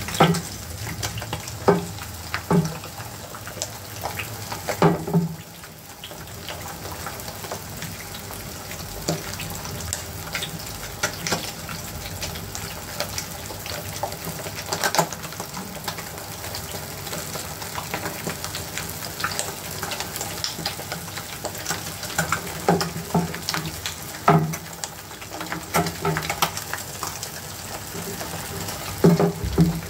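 Eggs frying in oil in a nonstick pan: a steady sizzle with constant small crackling pops. A few louder knocks or pops come in the first few seconds and again near the end.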